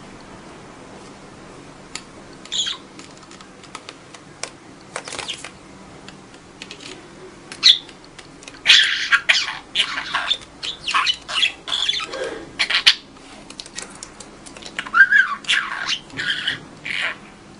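Budgerigar chirping and chattering: a few short, high calls at first, then dense runs of quick chirps about halfway through and again near the end.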